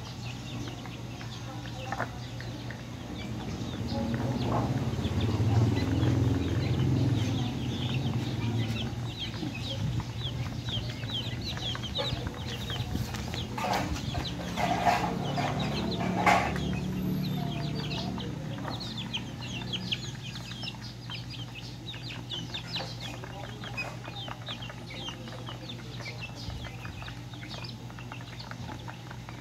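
A flock of young chickens peeping and clucking, with many short high cheeps throughout. A low rumble swells and fades about four to nine seconds in, and a few louder calls come near the middle.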